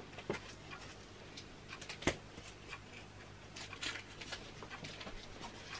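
Quiet room tone with a faint low hum and scattered small clicks and taps, and one sharper knock about two seconds in.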